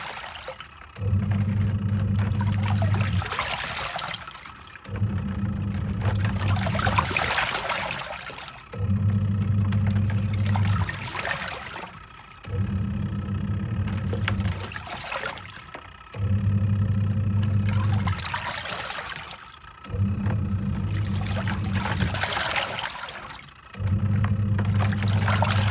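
Twin-tub washing machine on its wash cycle: the pulsator motor hums for about two seconds, stops, and water sloshes in the tub before the motor starts again, in a steady cycle of about four seconds repeated seven times. The pauses are where the agitator reverses direction.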